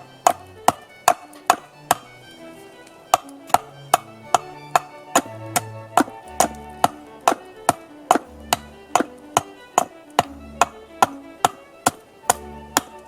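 Repeated sharp hammer strikes on wood, about two to three a second, pausing briefly about two seconds in and then continuing steadily. Soft background music with violin plays underneath.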